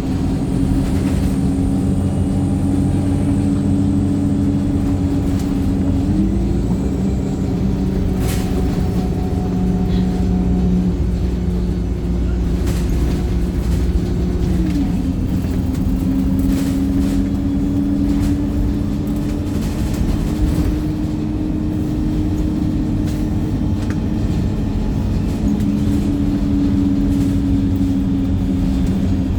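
Wright StreetLite single-deck bus's diesel engine running steadily under way. The engine note rises about six seconds in, holds higher for about eight seconds, then drops back.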